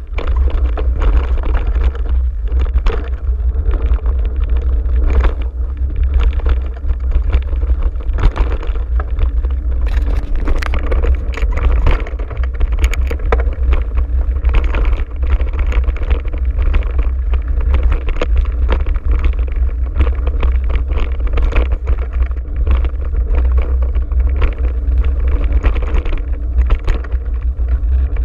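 Wind rumbling over an action camera's microphone while a mountain bike rides fast over a dirt singletrack, with frequent rattles, knocks and chain slap as the bike bounces over roots and bumps.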